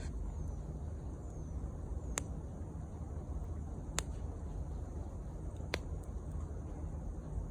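Wood campfire burning, the wood snapping in four sharp single pops over a low steady rumble.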